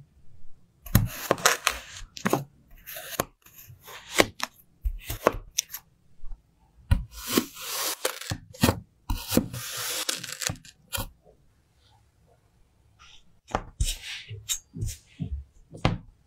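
Knife blade slicing through molded kinetic sand, a series of gritty crunching cuts, some short and some drawn out. About two-thirds through there is a pause, followed by shorter, lighter cuts and scrapes.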